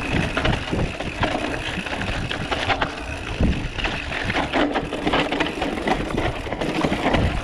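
Mountain bike clattering and rattling over rough dirt trail, with irregular knocks over a steady rush of noise.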